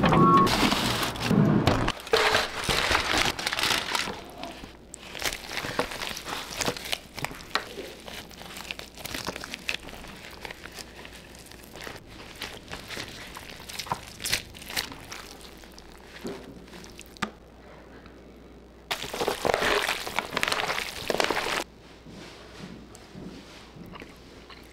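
Aluminium foil and a disposable foil pan crinkling and rustling, with scattered handling sounds as a smoked chuck roast is gripped and pulled apart by gloved hands. The crinkling gets louder for a couple of seconds near the end.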